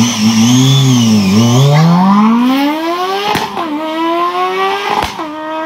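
Motorcycle engine accelerating hard, its pitch wavering and then climbing steadily. It shifts up twice, about three and a half and five seconds in, each shift a sharp click with the pitch dropping and climbing again.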